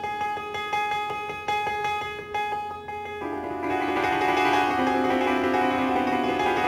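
Solo jazz piano. Quick, repeated note figures with crisp attacks for about three seconds, then a change to dense, ringing chords, played a little louder.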